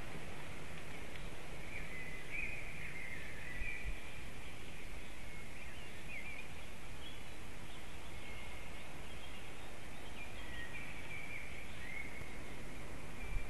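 Small songbirds singing in short high phrases again and again, over a steady background hiss.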